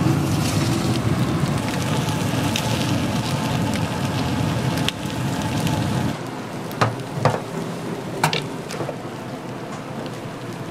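Pig's trotters sizzling and crackling over high heat, a steady dense crackle that gets quieter about six seconds in, followed by a few sharp knocks.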